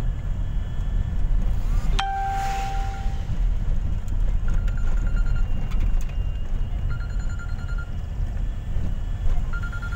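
Steady low rumble of a van's engine and tyres, heard from inside the cab while driving. About two seconds in, a clear chime rings for about a second. Three short runs of rapid high beeps come later.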